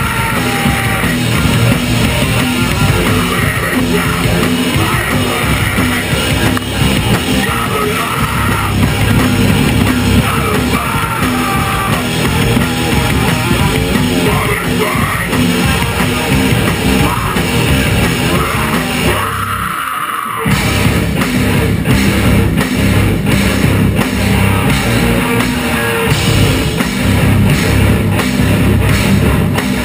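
A stoner-metal band playing live: distorted electric guitars and bass over a drum kit, loud and dense throughout. About twenty seconds in, the low end cuts out for roughly a second before the full band comes back in.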